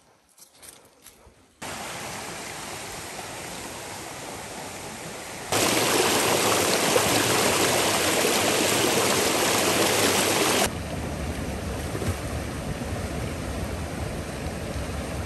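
Creek water tumbling over rocks at a waterfall, a steady rushing that comes in sharply about a second and a half in. It is much louder for about five seconds from the middle on, then settles back to a softer rush. Before the water comes in there are only a few faint rustles.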